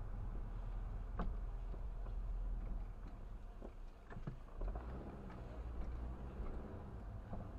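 A car driving on a city street, heard from inside the cabin: low engine and road rumble with a few sharp clicks and knocks. The rumble drops about four seconds in, as the car slows for an intersection, then a steady engine hum picks up as it drives on.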